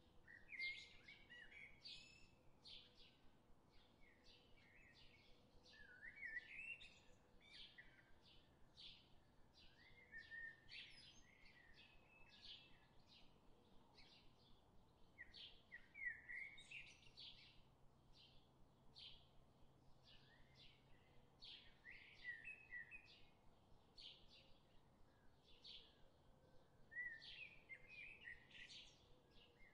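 Faint birdsong: a steady run of short, high chirps about three a second, with a longer warbled phrase every five or six seconds.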